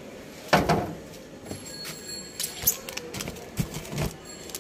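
Handling noise: a thump about half a second in, then scattered light knocks and clicks as spools of kite string are moved about.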